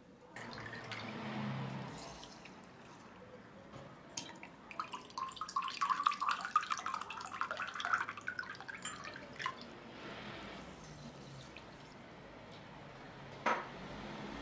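Apple cider vinegar poured from a small bottle into a glass jar packed with sliced radishes, trickling and splashing, its pitch rising slightly as the jar fills, mainly from about five to nine seconds in. A single short knock near the end.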